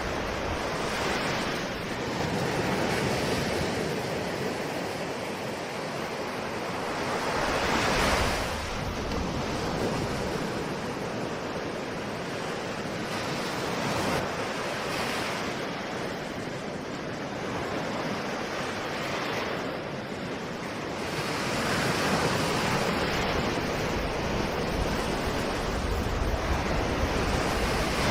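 Ocean waves breaking and washing ashore, the surf swelling and easing every few seconds, with a strong surge about eight seconds in and a longer, louder stretch in the last third. Wind on the microphone adds a low rumble at times.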